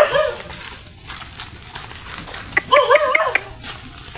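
A dog whining and yelping in high, wavering calls: a short one at the start and a quick run of them about two and a half seconds in.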